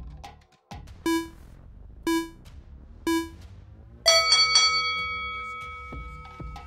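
Workout interval timer counting down: three short electronic beeps about a second apart, then a louder, longer ringing chime that fades slowly, marking the end of a work interval. Electronic background music with a steady beat plays underneath.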